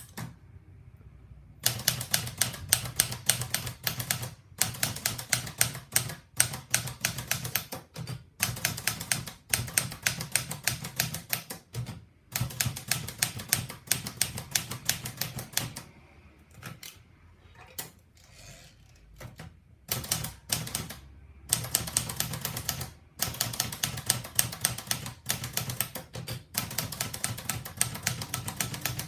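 Olivetti Lettera 35 manual portable typewriter being typed on: rapid runs of key strikes lasting a few seconds each, broken by short pauses, with a quieter, sparser stretch about two-thirds of the way through.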